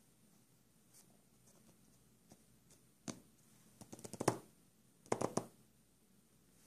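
Fingertips tapping and scraping on the cardboard lid of an iPhone 6 box: one click about three seconds in, then two short clusters of taps and scrapes about a second apart.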